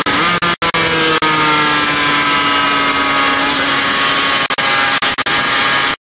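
Motorcycle engine heard onboard at speed with heavy wind noise, its pitch falling slowly as the bike runs through a long corner, then starting to rise again near the end. The sound cuts out completely for a moment twice, about half a second in and again near the end.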